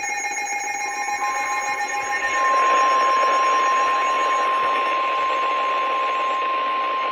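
Emergency alert attention tone, a single steady high-pitched tone of the NOAA Weather Radio warning-alarm kind. It comes in about a second in over a hiss, grows louder about two and a half seconds in and holds. It signals that a tornado warning message follows.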